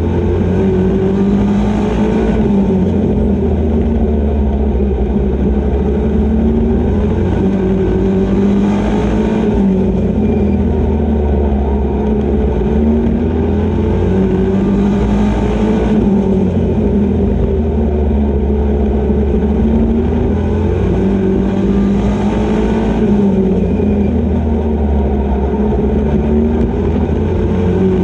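Super Pro race truck's engine heard from inside the cockpit at racing speed, its note swelling and falling in a repeating cycle about every six or seven seconds as the truck accelerates and lifts lap after lap.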